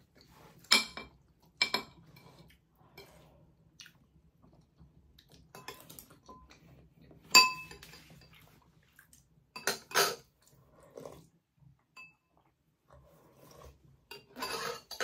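Metal spoons clinking and scraping against ceramic dishes during a meal: scattered sharp clinks, the loudest about seven seconds in, ringing briefly, with quieter stretches between.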